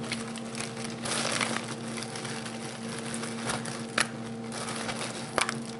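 Plastic crinkling from a deli package of provolone cheese slices and a plastic food-handling glove as the slices are pulled out, with two short ticks in the second half over a faint steady hum.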